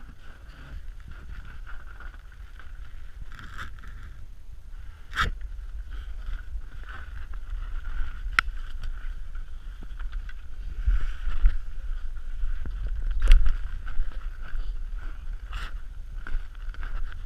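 Low, buffeting rumble of wind and handling on a body-worn camera, with a few sharp knocks as the wearer moves about and climbs out of a rusted steel steam-locomotive cab.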